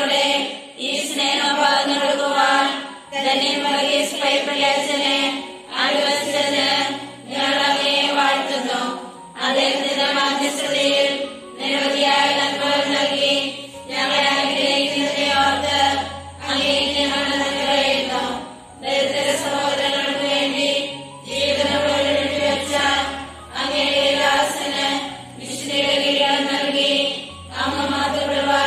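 A group of women chanting a prayer aloud in unison, in short even phrases with brief pauses between them, with low notes held underneath.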